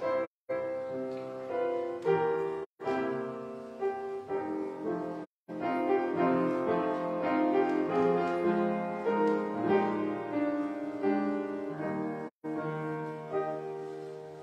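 Solo piano playing slow offertory music, with the sound cutting out completely for a moment four times.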